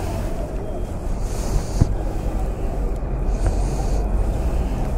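A vehicle engine running steadily with a low rumble, with wind noise on the microphone; a single sharp click about two seconds in.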